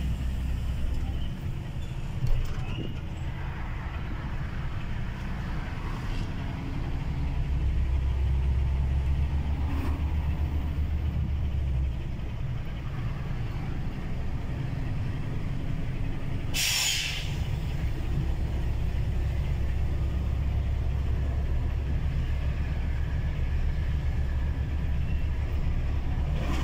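Truck engine and road noise heard from inside the cab as a steady low rumble. A sharp knock comes about two seconds in, and a short hiss of air comes about two-thirds of the way through, like an air brake venting.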